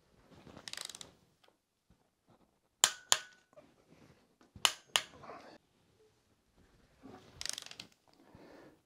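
Click-type torque wrench snapping as it reaches the set torque on cylinder head bolts of a Lada Niva 1600 engine: two pairs of sharp clicks, the pairs about a second and a half apart. Softer rattling of the wrench and socket comes before and after.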